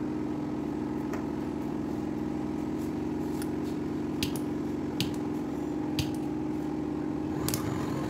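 A steady mechanical hum runs throughout, with a handful of sharp metallic clicks and taps as copper refrigerant tubing and tools are handled.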